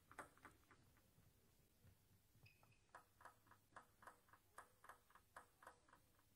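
Celluloid-type table tennis ball bounced by hand on the table before a serve: faint, light clicks, a few just after the start, then a steady run of about four a second from about three seconds in until near the end.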